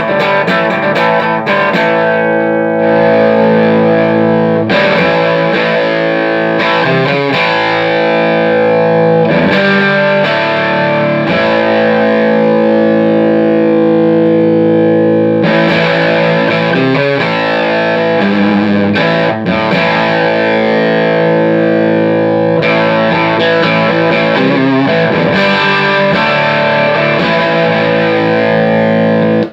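Electric guitar played through a Fender '57 Custom 'Tweed' tube amplifier, sustained chords and notes ringing out with a gritty edge. The amp is running after its leaking preamp and phase-inverter coupling capacitors were replaced.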